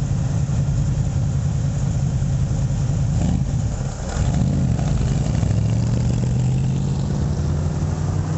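Sports car engine idling, then pulling away and bogging almost to a stall about four seconds in. The engine catches and revs up as the car drives off.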